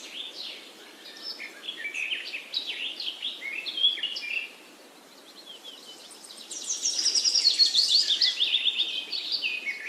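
Birds chirping in short, varied notes. After a brief lull about halfway through comes a fast, high, louder trill, and then more chirps.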